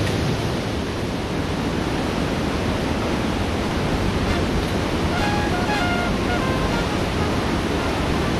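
Steady rushing of a mountain stream through a narrow rock gorge, an even, unbroken wash of water noise.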